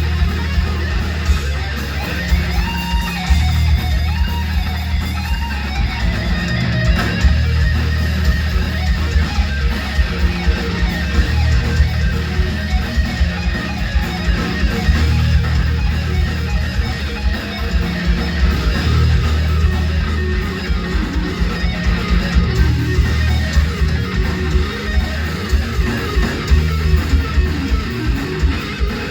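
Live heavy metal band: an electric guitar solo over bass guitar and a steady beat, loud and unbroken.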